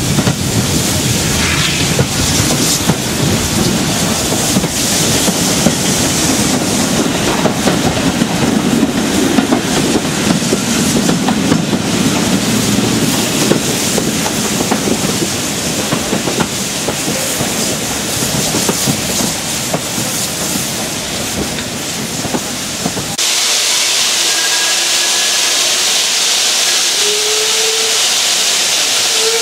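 Four steam locomotives at the head of a passenger train working hard, heard from a carriage window: a dense, continuous exhaust thrash mixed with the clatter of the carriage wheels. About 23 seconds in it changes abruptly to a loud, steady hiss of steam.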